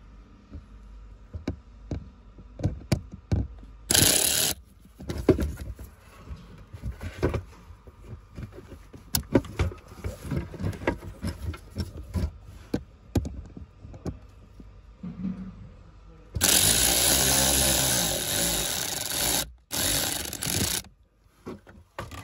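Plastic trim and clips around a BMW X5's cabin-filter housing being handled and refitted: a string of clicks and knocks, with a short loud rushing burst about four seconds in and a longer loud rushing noise for about four seconds near the end.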